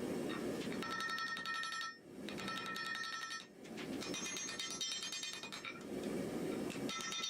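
Rapid metallic striking in bursts of one to two seconds, each with a steady bell-like ring, alternating with a low rushing noise in between: metal being hammered while forging an iron axe head.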